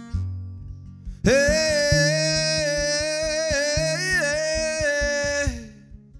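Acoustic guitar being played while a man sings one long held note, starting about a second in, wavering in pitch near the middle and fading out near the end.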